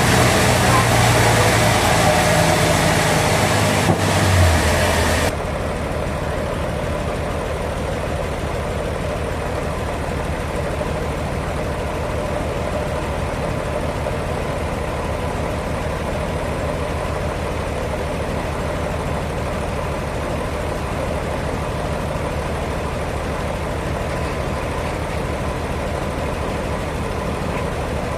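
Sawmill machinery running with an engine-like drone. For the first five seconds it is louder, with a harsh high noise on top and a pitch that drops just before the end of that stretch. It then changes abruptly to a quieter, steady running sound.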